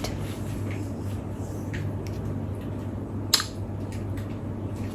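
Faint handling noises over a steady low hum, with one sharp click a little past the middle.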